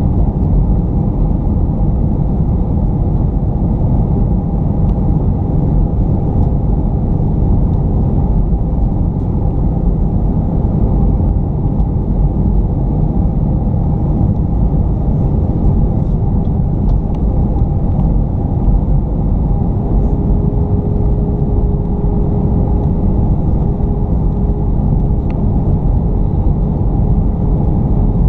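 Jet airliner cabin noise at a window seat in flight: a loud, steady low rumble of engines and airflow with faint steady hums on top, one slightly higher hum coming in about twenty seconds in.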